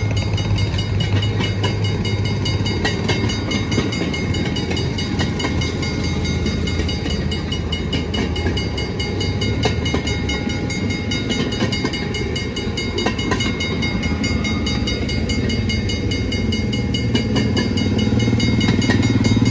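Railroad speeders (small motorized track cars) running past one after another: small engines putting along steadily, with frequent clicks of steel wheels over the rail. Near the end another engine rises in pitch and grows louder as the next car comes up.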